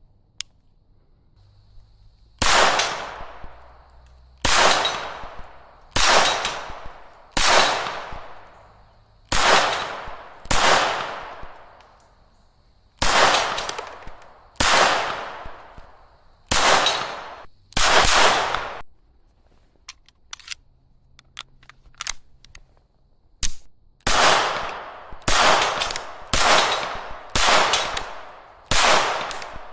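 Beretta 81BB .32 ACP pistol firing single shots, each with an echo that dies away over about a second. About ten shots come one to two seconds apart, then a pause with a few light clicks, then about seven quicker shots near the end.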